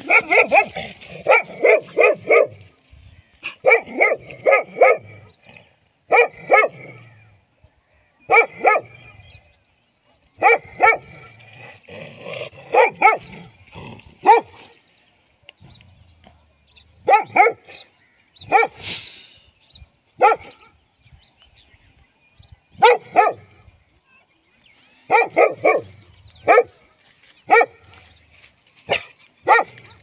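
A dog barking in quick runs of two to five barks, with a short pause after each run, over and over.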